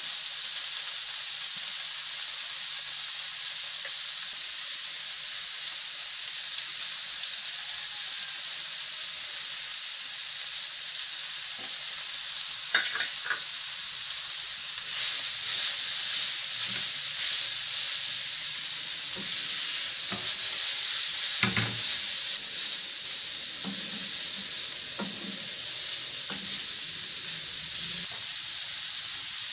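Minced meat and shredded vegetables sizzling steadily in a frying pan, the water having cooked off. A few sharp knocks come as vegetables are tipped in from a steel plate, and in the second half a wooden spatula taps and scrapes as the mix is stirred.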